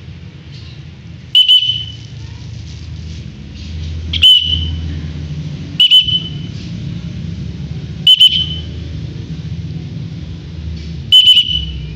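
Lovebird giving five short, shrill calls a few seconds apart, each a loud doubled chirp, over a steady low rumble.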